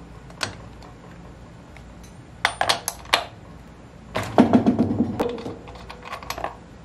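Hands handling the plastic engine housing of a Husqvarna 323L string trimmer that is not running: sharp plastic clicks and clatter in several short clusters, the loudest a rattling scrape in the middle.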